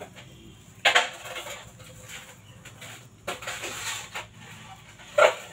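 Hands squeezing and folding sticky bread dough over a paper plate: a few short, noisy squishing and rustling bursts, the loudest about a second in.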